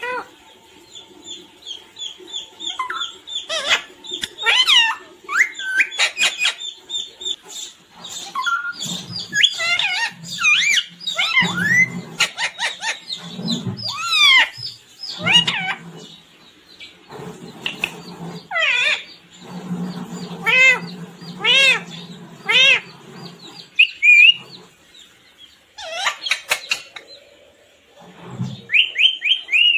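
Pet parrot calling and chattering: a long run of short, sharp squawks and whistled chirps that glide up and down in pitch, with a few brief pauses.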